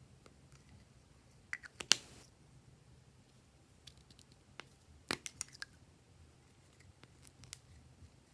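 Glossy slime being handled and pressed, giving sharp sticky clicks and pops in two clusters, the loudest about two seconds in and another group about five seconds in, with a few lighter ticks between.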